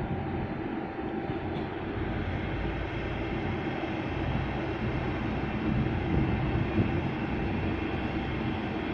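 Steady low rumble of the Evergreen E-type container ship Ever Elite under way as it passes close by, with a faint steady hum over it.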